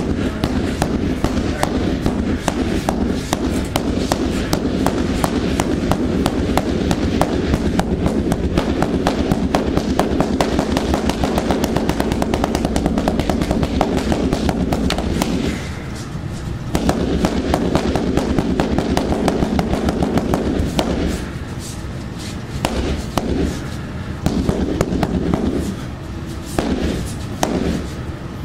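A rapid, almost unbroken flurry of strikes on a freestanding heavy bag, as in a burnout drill, easing briefly about halfway through and again about two-thirds of the way in.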